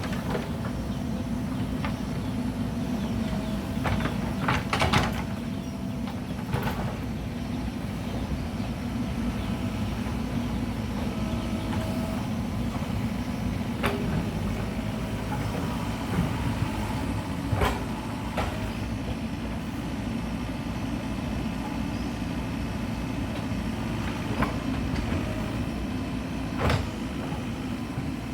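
Mahindra backhoe loader's diesel engine running steadily at work. Sharp knocks and clatter come every few seconds, in a cluster about five seconds in and several times later.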